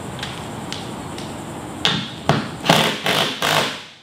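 Cordless power driver run in about five short bursts, the later ones longer, tightening the bolt that fastens a climbing hold to the wall, then stopping abruptly. A few faint clicks come before it.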